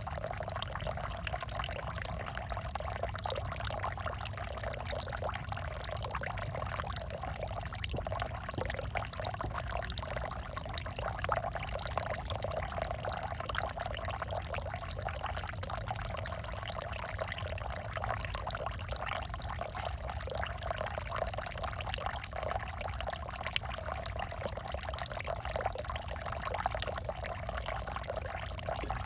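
Water pouring and splashing steadily, a continuous bubbling trickle with a low rumble beneath.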